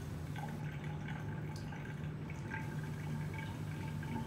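A steady low hum of room tone with a few faint small clicks and taps.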